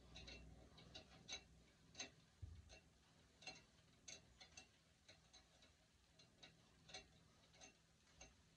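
Faint, irregular clicks and small pops as a raccoon's hide is worked and pulled down off the carcass by hand, one or two a second at uneven spacing.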